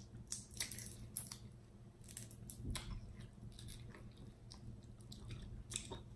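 Snow crab leg shell being cracked and peeled apart by hand: scattered faint cracks and crunches of shell.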